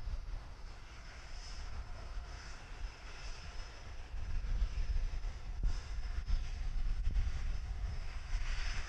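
Aircraft on approach to land, its engines heard as a distant, steady low sound that grows louder about halfway through.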